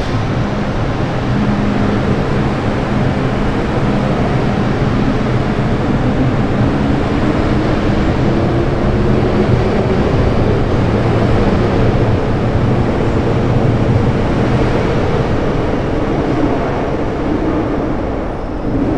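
MTR M-train electric multiple unit running on the track: steady rolling rumble with a motor whine that rises in pitch around the middle, easing off a little near the end.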